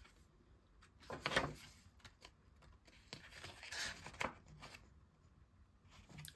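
Paper rustling as the pages of an album photo book are handled and turned, with soft rustles about a second in and again near four seconds, and small clicks of paper between.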